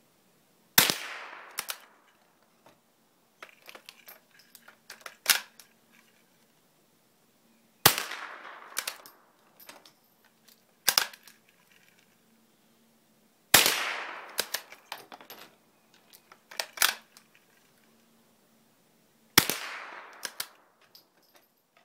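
Marlin Model 122 single-shot bolt-action .22 rifle firing four shots about six seconds apart, each sharp crack trailing off over about a second. Between shots there are quieter clicks as the bolt is worked to reload.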